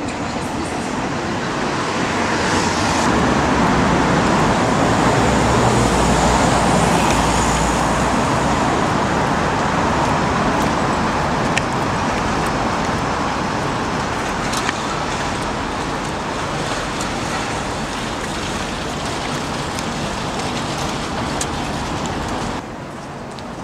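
City street traffic noise: a steady wash of passing cars that swells as a vehicle goes by, loudest a few seconds in, with a few faint clicks. The level drops suddenly near the end.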